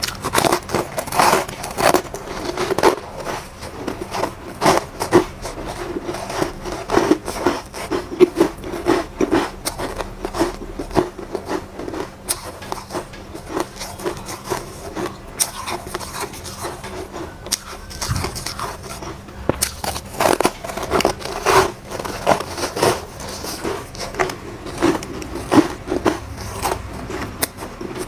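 Close-miked biting and chewing of soft, powdery shaved foam ice blocks: irregular crisp crunches and crackles, sparser about halfway through and denser again later.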